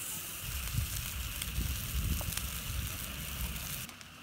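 Meat and vegetable skewers sizzling on the wire mesh of a charcoal grill: a steady hiss with a few faint crackles, over a low rumble. The sound drops away quieter shortly before the end.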